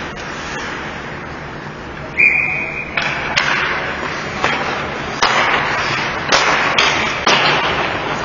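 Ice hockey rink sounds: a short steady whistle blast about two seconds in, then a run of sharp clacks and short scrapes from sticks, puck and skates on the ice.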